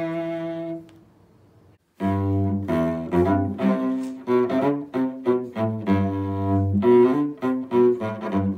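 Solo cello playing a Christmas carol: a held note dies away, then after about a second of silence a new tune begins, with bowed melody notes over a low bass line.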